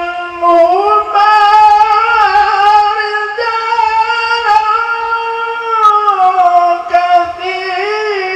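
A man chanting Quran verses in the melodic recitation style (tilawah), holding long notes that slide and turn in ornamented melismas.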